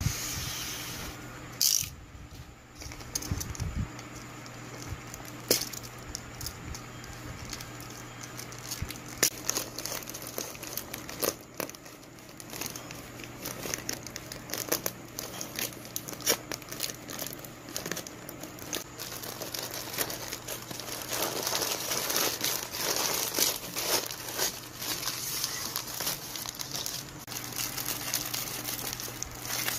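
Plastic courier mailer and clear plastic wrapping being handled and opened, crinkling and rustling with many sharp clicks, and scissors cutting the mailer. The crinkling grows denser about two-thirds of the way through.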